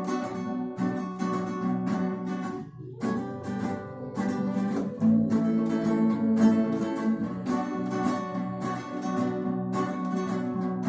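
Acoustic guitar strumming chords in a steady rhythm with no singing: an instrumental passage after the last chorus of the song.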